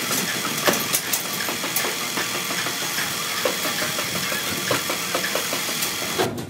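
Steady mechanical running noise with scattered clicks and knocks and a faint steady high whine, cutting off abruptly near the end.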